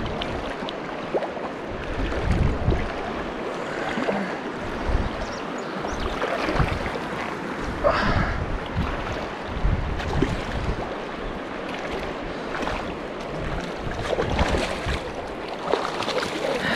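River water rushing steadily, with wind gusting on the microphone and a few short sharp sounds scattered through.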